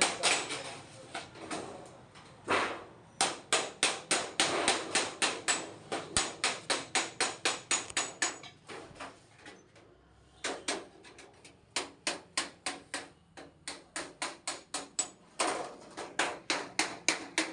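Rapid, even hammer strikes, about four a second, in long runs with a short pause about ten seconds in.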